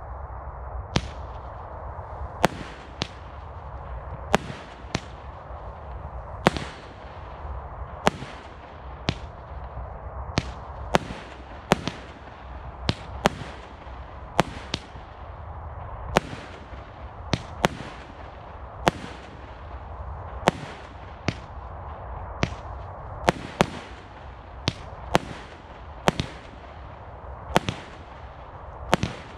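Category 2 firework cake from the Celtic 9-Pack firing shot after shot, starting about a second in. Sharp bangs come at an uneven pace of roughly one to two a second, each followed by a short fading hiss.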